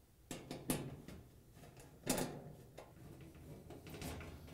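Nut driver turning out the screws of a washer's sheet-metal rear access panel: faint clicks and scrapes of metal on metal, the loudest click about two seconds in.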